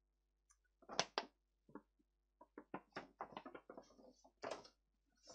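Faint handling noises of objects being moved about by hand: two sharper knocks about a second in, then a quick run of small clicks and taps.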